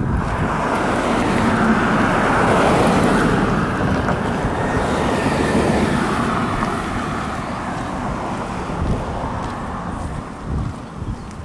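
An SUV passing close on the road, its tyre and engine noise swelling over a few seconds and then slowly fading away.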